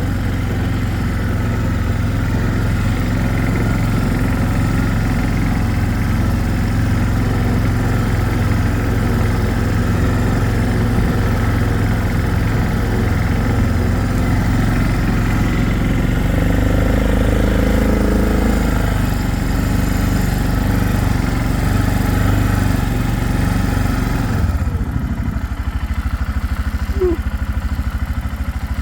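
Four-wheeler (ATV) engine running as it drives through deep snow in four-wheel drive. About 24 seconds in, the engine note drops lower and settles into an even putter.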